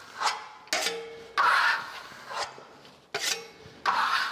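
Steel smoothing trowel scraping over partly dried, still slightly soft lime-based marble plaster, held flat to press and burnish the surface smooth and glossy. About four sweeping scrapes, each starting abruptly and fading over about half a second.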